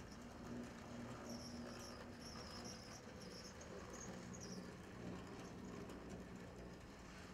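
HO-scale brass model steam locomotive with a can motor running along the track: a faint steady motor hum with light mechanical running noise, and intermittent high-pitched squeaks from about one to four and a half seconds in.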